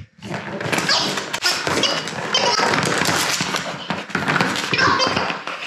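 Wobble Wag Giggle Ball being pushed and mouthed by a dog: dense rattling and knocking from the ball, with brief snatches of its electronic giggle.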